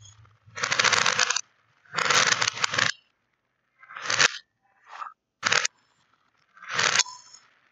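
Small round plastic beads clattering in and against plastic stacking cups, in about six separate bursts of rattling up to a second long. The clip runs in reverse, so several bursts swell up and then stop abruptly.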